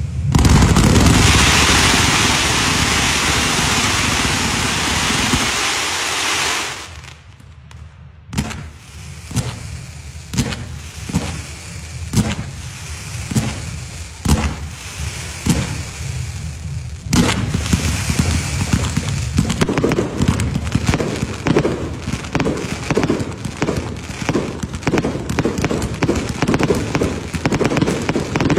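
Fireworks display going off. A loud dense crackling hiss for about six seconds drops away. A battery then fires shot after shot, about one a second. From about halfway on, it becomes a thick run of rapid cracks and pops as fountains spray.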